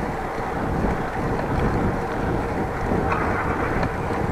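Steady wind rushing over the microphone of an action camera on a moving bicycle, with a low rumble of road noise underneath.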